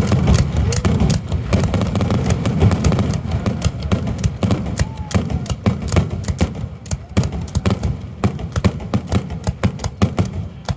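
Fireworks finale barrage: a rapid, irregular string of booming aerial shell bursts and crackles over a continuous low rumble, the reports coming many times a second and growing more separate and sharper in the second half.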